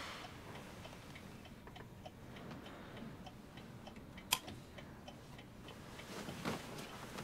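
Clock ticking steadily, about two ticks a second. A single sharp click about four seconds in as a table lamp is switched on, then a little rustling near the end.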